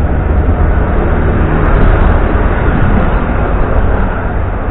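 Hong Kong double-decker electric tram running along its rails, a loud steady low rumble of wheels and running gear.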